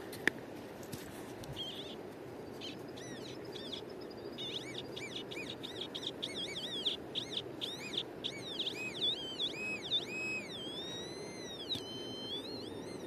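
Metal detector (Nokta The Legend) sounding a target: a fast run of warbling tones that rise and fall in pitch as the coil passes back and forth over it. Near the end it settles into a few longer tones that slide down a little. A single sharp click comes just after the start, over a steady low background hiss.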